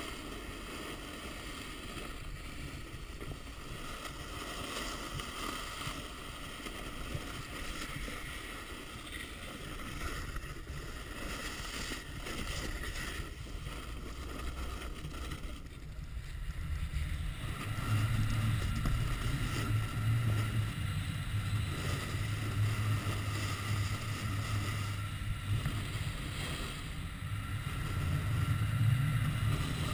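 Snowboard sliding and scraping over packed snow, with wind rushing over the action camera's microphone; the low rumble gets louder a little past halfway through.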